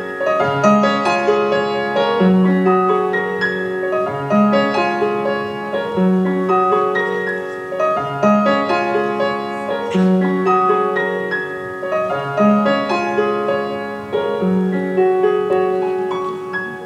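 Piano playing a slow, gentle piece: a low note comes back about every two seconds under a flowing melody. It fades right at the end.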